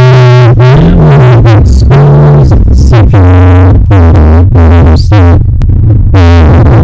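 Loud, heavily bass-boosted synthesizer music, clipping at full volume, with a run of short pitched notes over a booming low end.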